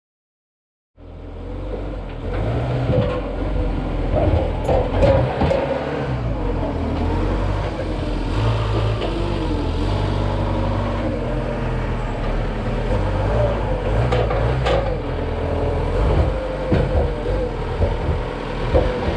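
Red Linde counterbalance forklift's engine running and revving up and down as it works at the trailer, with a few short knocks. It starts about a second in.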